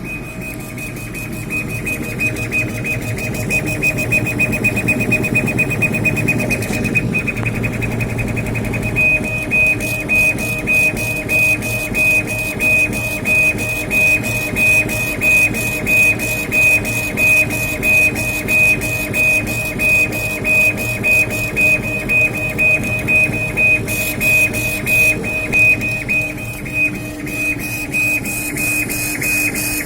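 KAMACH 6090 CO2 laser engraving machine running a test job, its stepper-driven gantry moving with a high, steady whine. For the first nine seconds the whine pulses fast; after that the sound swells in a regular rhythm about one and a half times a second, as the head makes back-and-forth passes.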